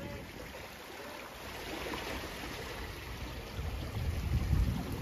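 Sea waves washing and sloshing among the concrete blocks of a breakwater, a steady hiss of water with a low surge building a little after three and a half seconds in.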